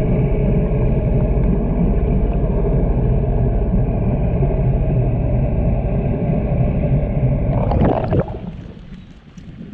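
Jet ski engine running at a steady speed. It cuts off sharply about eight seconds in, leaving only a quieter rushing noise.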